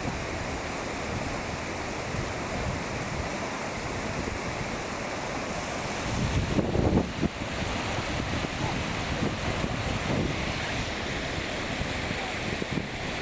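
Steady rushing of a waterfall, with wind buffeting the microphone and a louder rumbling gust about halfway through.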